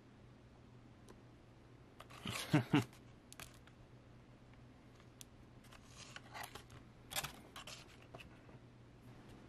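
Small plastic blister-card toy package handled and turned over in the hands: a crinkle and rustle of the plastic bubble and card about two seconds in, the loudest sound, then scattered light clicks and scrapes of fingers on the card.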